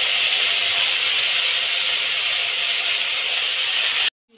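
Steady hiss of wet half-boiled rice steaming and sizzling in a hot aluminium kadhai as its excess water boils off. The hiss cuts off abruptly near the end.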